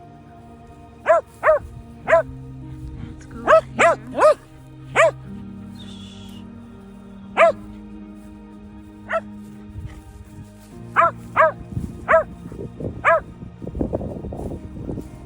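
Shetland sheepdogs barking: about a dozen short, sharp barks, mostly in quick pairs and threes, with a louder rustle near the end.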